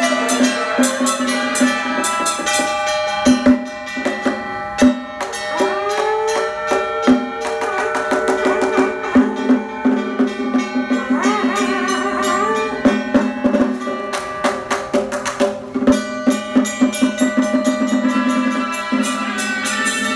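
Traditional Taiwanese temple ritual music: drums, gongs and cymbals beaten in quick strokes under a held, wavering melody line whose pitch bends up and down. A few sharp, louder strokes stand out at about a quarter of the way in and near three-quarters.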